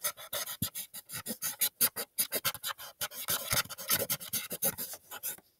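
Black marker scribbling on paper, colouring in a solid area with rapid back-and-forth strokes, several a second, which stop just before the end.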